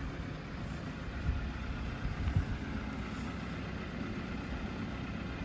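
Excavator engine running steadily at a low rumble, with a couple of brief low knocks about one and two seconds in.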